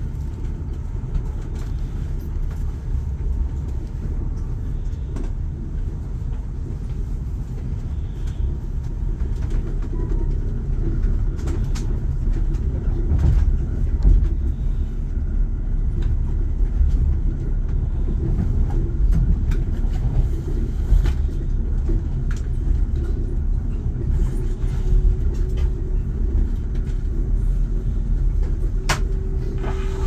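Passenger train running, heard from inside the carriage: a steady low rumble that grows a little louder as the train pulls out of the station and picks up speed, with occasional sharp clicks from the wheels on the track. A steady whine comes in near the end.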